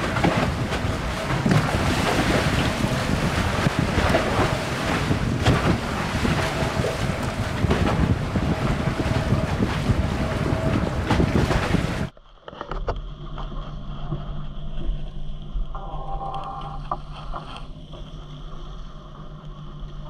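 Wind buffeting the microphone over water rushing and splashing along the hull of a Leopard 42 sailing catamaran under way. About twelve seconds in the sound cuts abruptly to a much quieter steady low hum with faint water.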